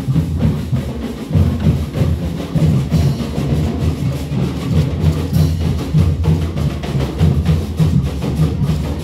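Parade marching band drumming: bass drums and snare drums beat a steady march rhythm with sharp clicking strokes over the low booms.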